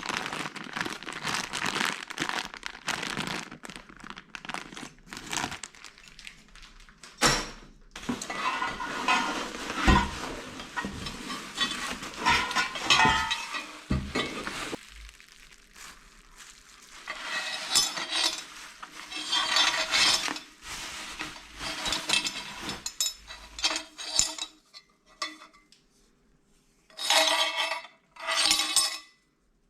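Metal parts and hardware clinking and clattering as they are handled, with irregular knocks and a few short ringing clinks near the end.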